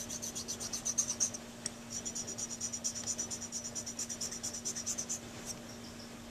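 Half-round tapered needle file, a fine No. 2 cut, rasping in quick short strokes, about five a second, across the acrylic-built-up tip of a metal Dukoff saxophone mouthpiece: fine shaping of the tip. There is a brief pause about a second and a half in, and the filing stops about five seconds in.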